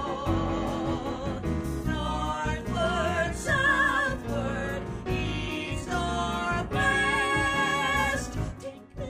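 Musical-theatre song with orchestra: a singer holds a run of long notes with vibrato over the accompaniment, a new note about every second, and the music drops away near the end.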